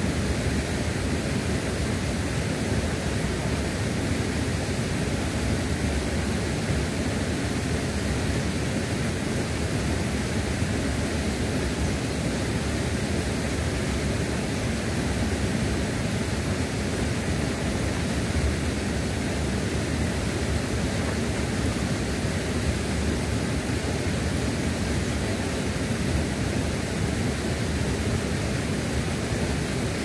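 Steady rush of a fast-flowing river at a waterfall: an even, unbroken water noise.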